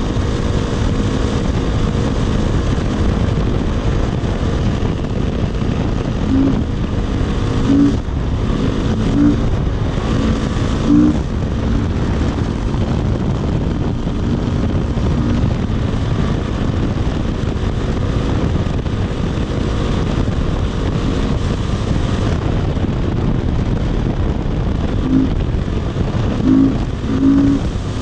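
Single-cylinder dirt bike engine running at a steady cruising speed under heavy wind rush on the microphone. Several short louder blips of engine tone come about a quarter of the way in and again near the end.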